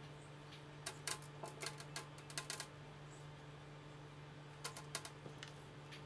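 Soft, faint clicks and taps of wet dried fish and fingers against a stainless wire rack and a plastic bowl as the fish are laid out, in two short flurries, the second after a pause about halfway through, over a steady low hum.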